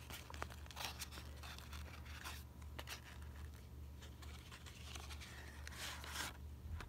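Faint paper-like scraping, rustling and small clicks of a thin cardboard trading-card box being handled, its flaps folded open around a stack of cards, over a low steady hum.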